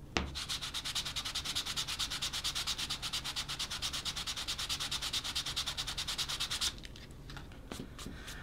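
150-grit sandpaper rubbed by hand on a leather wallet, in fast, even back-and-forth strokes: an abrasion test of the leather. The sanding stops abruptly shortly before the end, leaving a few faint handling ticks.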